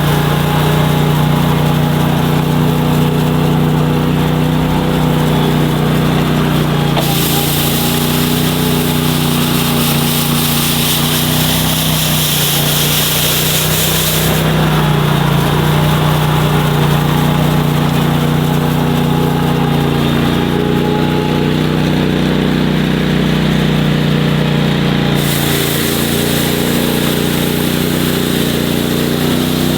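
Engine of a Boss SR Mag snow machine with its broom attachment, running steadily. A high hiss joins it twice, for several seconds each time, and the engine note dips briefly about twelve seconds in.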